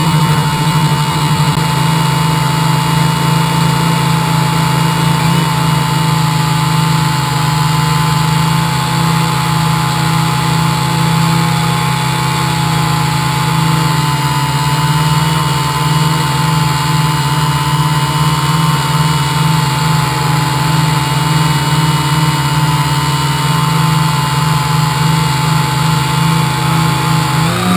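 Quadcopter's electric motors and propellers running steadily in a hover, with a steady whine over a strong low hum, heard close up from a camera mounted on the craft. Just before the end the pitch dips and wavers as the motors change speed.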